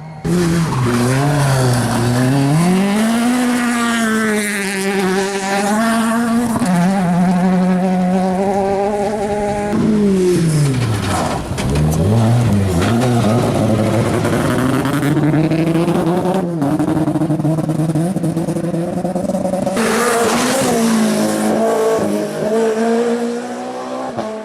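Rally car engine at hard throttle, its pitch climbing and dropping again and again through gear changes. The pitch falls steeply about ten seconds in, then climbs again as it pulls away.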